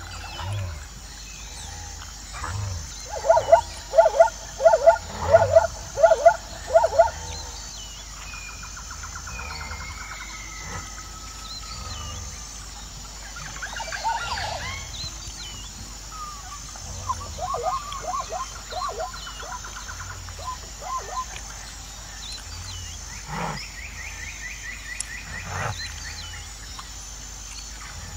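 Zebra barking calls: a run of about nine quick, loud yelping barks a few seconds in, then fainter, shorter series of calls later on.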